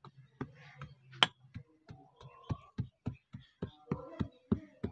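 Wooden-handled hammer pounding loose soil to pack it down: a steady run of dull thuds, about three a second, with one sharper, louder knock about a second in.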